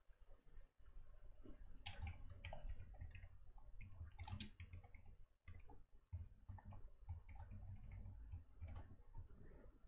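Faint computer keyboard typing and mouse clicks: irregular quick clicks that begin about two seconds in, over a low hum.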